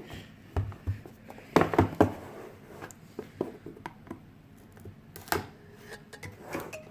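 A tablet's retail box being opened by hand: a series of sharp taps and clicks of the packaging, the loudest a pair about two seconds in and another about five seconds in, with soft rustling between.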